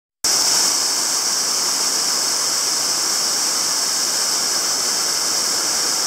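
Waterfall: water pouring steadily over rock ledges, a constant rushing hiss strongest in the high end.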